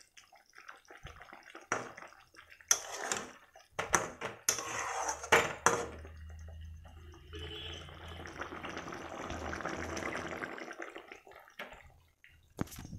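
A spatula knocking against a metal kadai and stirring through thick potato-and-chhena curry: several sharp knocks in the first half, then a few seconds of soft, wet stirring of the gravy.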